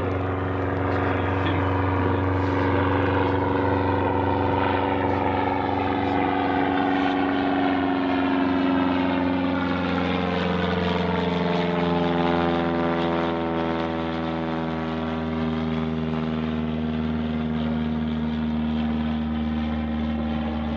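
Cub bush plane's piston engine and propeller droning as it flies past, the pitch dropping over a few seconds about ten seconds in as it passes.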